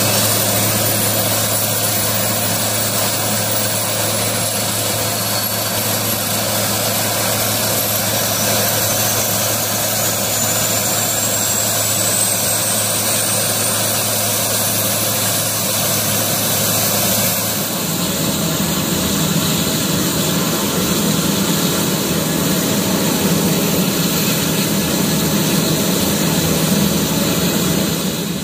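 Turboprop aircraft engine running close by, a steady hum under a high turbine whine that slowly rises in pitch as the engine spools up. About 18 seconds in, the sound changes abruptly to a deeper steady drone.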